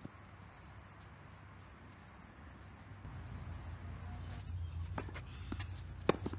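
Tennis ball knocks on a clay court: a few sharp racket hits and bounces in the second half, the loudest about six seconds in. A low rumble comes up about three seconds in.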